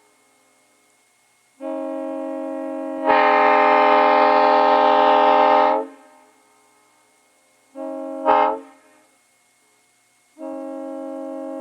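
Ex-Grand Trunk Nathan M3 three-chime locomotive air horn blown in blasts on compressed air: a long blast that starts soft and comes in full about three seconds in, a short blast a few seconds later, and a third starting soft near the end. Its chord sounds flat because the horn has gone out of tune.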